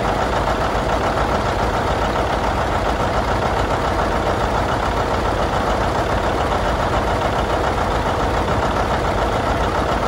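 Old John Deere two-cylinder tractor engine idling steadily with an even, rapid putt.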